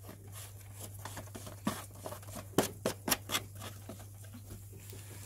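Light plastic clicks and taps from a lawn mower's plastic air filter cover being pressed back into place and its knob screwed down, with a cluster of sharp clicks about two to three and a half seconds in.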